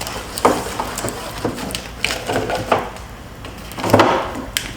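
Handling noise from the motorcycle's wiring harness and parts: several short knocks and rattles with rustling between them, the loudest near the end.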